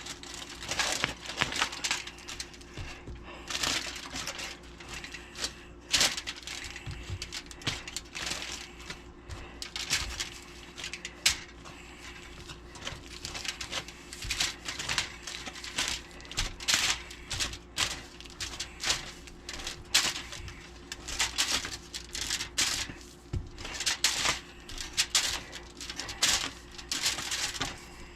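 Bread dough being kneaded: irregular soft slaps and knocks of the dough against the work surface, over a faint steady hum.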